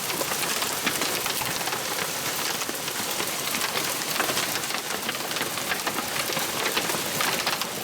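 Large hailstones pelting down hard, a dense continuous clatter of many sharp ice impacts.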